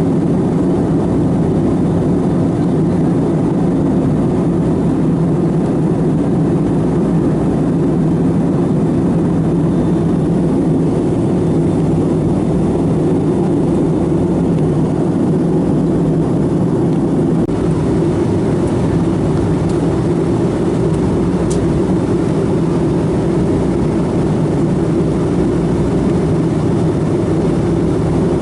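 Steady cabin noise of a Boeing 757-200 in flight: the engines and the rush of air over the fuselage make a constant, loud drone, heaviest in the low end, that does not change.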